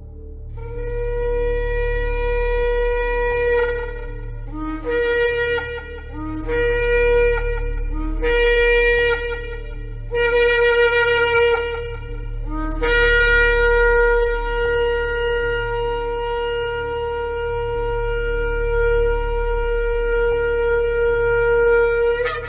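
Shofar blown. First a long blast, then four shorter blasts, each stepping up from a low note to a higher one. Then one very long held blast of about nine seconds that flips sharply upward at its end.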